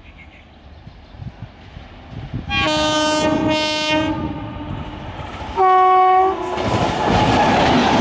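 Indian Railways WAG-9HC electric locomotive sounding its horn twice as it approaches: a long blast of about a second and a half, then a shorter, higher one about two seconds later. The locomotive and coaches then pass close by with a loud rumble.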